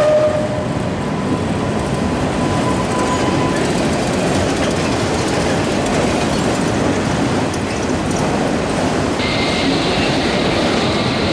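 Autorack freight cars rolling past on a curve: a steady rumble and clatter of steel wheels on rail. About nine seconds in, a high steady wheel squeal sets in.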